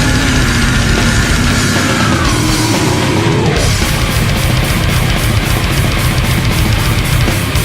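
Death metal / deathgrind band playing loud: distorted guitars and bass over a drum kit. For the first three seconds or so a long sliding high tone rides on top and falls away; then fast, even cymbal and drum hits drive on.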